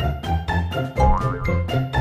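Background music with a steady beat, a bass line and short upward slides in the melody.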